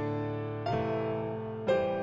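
Background piano music: slow, sustained chords, a new one struck about once a second and left ringing.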